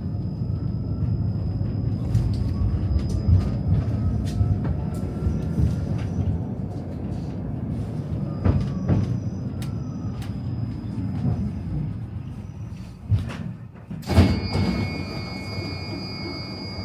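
Tram running on its rails, a steady low rumble that gradually fades as it slows. About fourteen seconds in there is a sharp clunk, followed by a steady high-pitched tone.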